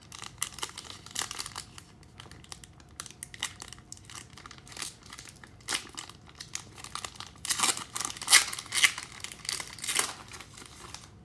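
Trading card pack wrappers from 2019 Panini Select football packs being torn open and crinkled in the hands: an irregular crackle throughout, with a louder run of tearing and crumpling about three-quarters of the way through.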